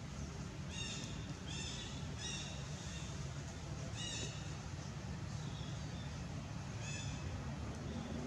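A monkey gives a handful of short, high-pitched calls at irregular intervals over a steady low rumble.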